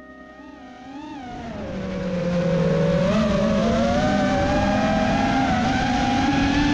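Five-inch FPV quadcopter's brushless motors (T-Motor Pacer 2207 2080KV) and three-blade props running in flight, recorded from the onboard GoPro: a steady, loud buzzing whine whose pitch wavers up and down with throttle. It grows louder over the first couple of seconds as the throttle comes up.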